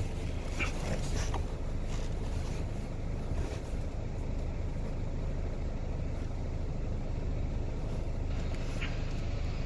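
Plastic clicks and rustling from handling the car's cabin air filters and their housing, a few in the first four seconds and one more near the end, over a steady low rumble.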